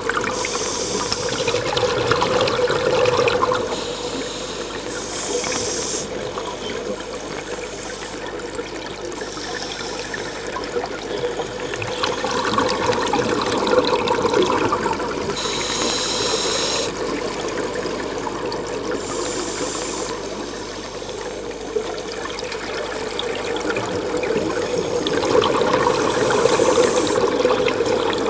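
Scuba regulator breathing heard underwater: a hiss with each breath and rushing exhaust bubbles, recurring every few seconds over a steady hum.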